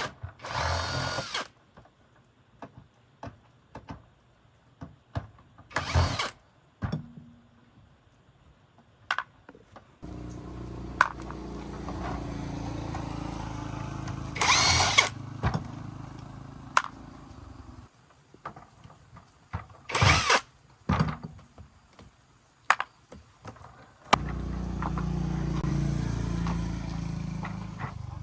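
Repair-work tool sounds: scattered clicks and knocks, several short bursts of a power tool, and a steady low hum that starts about ten seconds in, stops, and starts again near the end.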